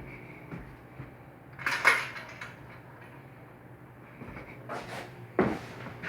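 Two sharp clunks, about three and a half seconds apart, with a fainter knock just before the second, like things being handled. A steady low hum runs underneath.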